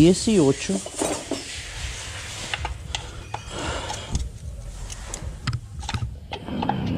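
Scattered metal clicks and knocks of an 18 mm wrench being fitted to and worked against the fill plug of a GM NV246 transfer case. The plug does not break loose with the wrench.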